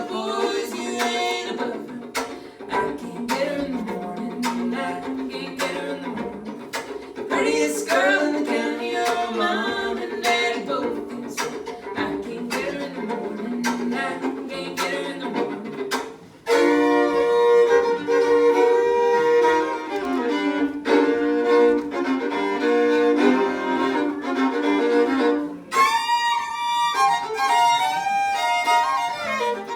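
Two fiddles playing a tune with fiddle chops: percussive, scratchy bow strokes about twice a second under the melody. About sixteen seconds in, the playing gets suddenly louder and fuller, and near the end one fiddle climbs into a high melody line.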